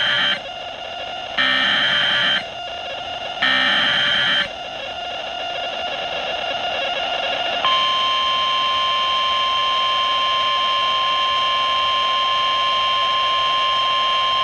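Emergency Alert System SAME header: the tail of one short screeching data burst, then two more about two seconds apart, over radio hiss. About eight seconds in, the steady single-pitch NOAA Weather Radio warning alarm tone starts and holds.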